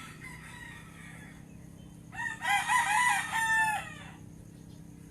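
A rooster crowing once, loudly, for about a second and a half, its pitch dropping at the end of the crow. A fainter crow sounds in the first second.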